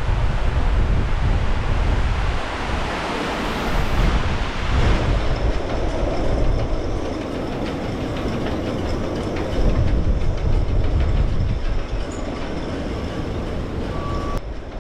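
Strong wind of around 60 mph buffeting the microphone: a loud, steady rush with a heavy low rumble that swells and eases in gusts.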